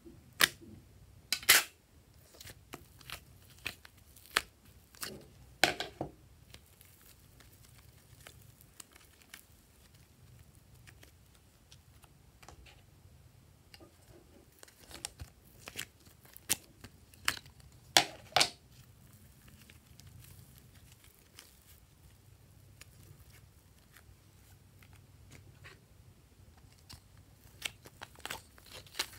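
Thin plastic slime tray being handled: its clear plastic lid crinkling and crackling as it is peeled off, then slime pulled out of the plastic compartments. Scattered sharp crackles and clicks with quiet stretches between.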